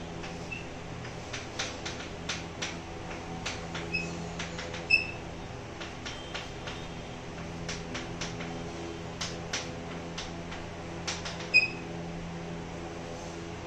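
Chalk writing on a blackboard: a run of sharp taps and clicks as each stroke lands, with a few short high squeaks of the chalk, the loudest about five seconds in and again near the end, over a steady low hum.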